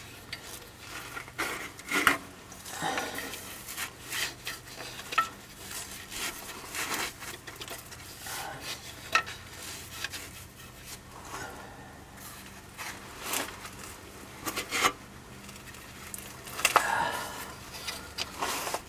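Irregular clicks, scrapes and rubbing from hands working a new rubber serpentine belt onto the engine's pulleys, with a few light metal taps.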